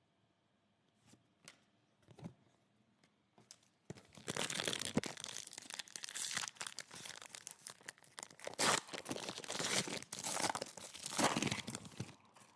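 A trading-card pack wrapper being torn open and crinkled, starting about four seconds in after a few soft clicks of cards being handled.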